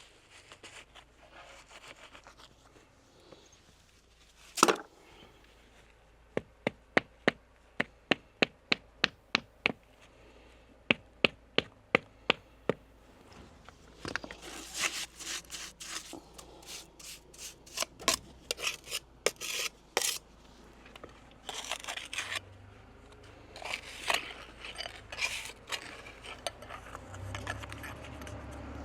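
Hand tools working stone and lime mortar. A sharp knock, then a run of sharp, evenly spaced taps at about three a second, then irregular scraping and rubbing.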